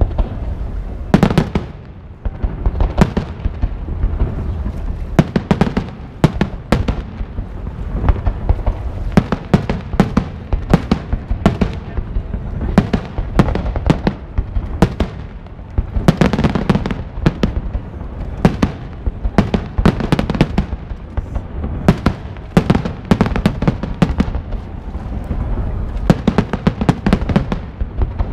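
Aerial fireworks display: many shell bursts going off in quick, overlapping succession, several sharp bangs a second with no let-up, over a steady deep rumble.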